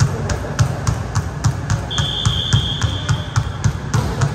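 Background music with a fast, steady beat of ticks and low thumps. A referee's whistle sounds in the middle, one long steady note held for about two seconds.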